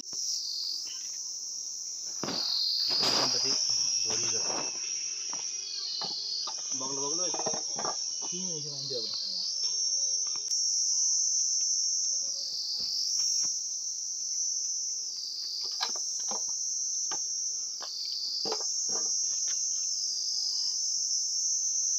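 Steady high-pitched insect drone that dips briefly in pitch every two to three seconds, with faint voices and a few short soft knocks.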